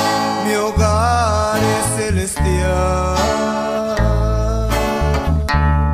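Music: a Christian song with guitar and deep bass notes, with a held, wavering note with vibrato about a second in.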